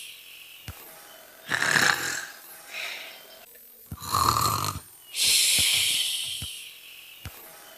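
Imitated snoring: drawn-in snores alternating with long hissing out-breaths, in a slow cycle that repeats every few seconds.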